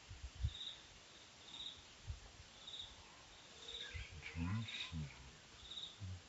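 An insect chirping steadily, one short high chirp about once a second, over faint outdoor background. There are a few low thumps, and a brief low-pitched voice-like sound comes about two-thirds of the way in.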